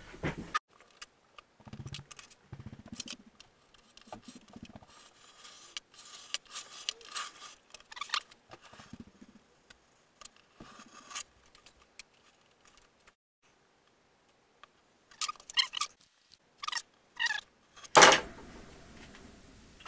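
Snap-off utility knife cutting a balsa strip on a cutting mat: scattered faint scraping and clicking strokes with soft knocks as the pieces are handled, a run of sharper clicks late on, and one louder knock near the end.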